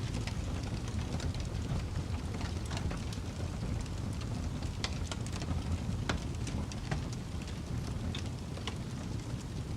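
Fire burning steadily with a low roar, crackling, and scattered sharp pops throughout.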